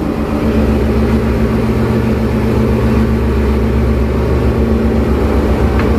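Steady low drone of ship engine-room machinery, a constant hum that stays even throughout.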